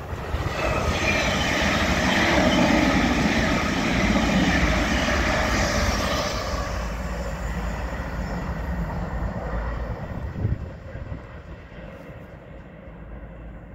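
Elizabeth Line Class 345 electric multiple unit passing close by at speed. The rush of its wheels on the rails, with a steady whine over it, builds in the first second, holds for several seconds, then fades as the train moves away.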